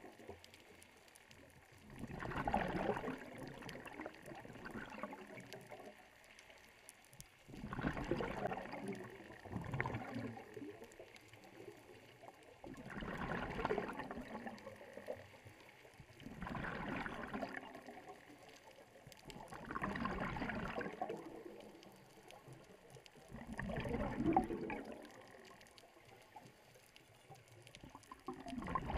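Scuba breathing through a regulator underwater: a burst of bubbling exhalation every three to four seconds, with quieter pauses between.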